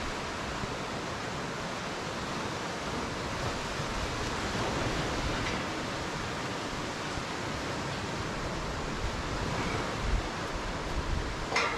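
Steady rush of waves and moving water at a river mouth. About two seconds before the end, wind begins buffeting the microphone in gusts. Just before the end comes one short, sharp noise.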